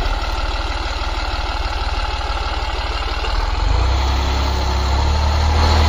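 Tractor diesel engine running hard under load, the driver trying to drive it out of deep mud. Its steady low throb gets louder and heavier about three and a half seconds in as he revs harder.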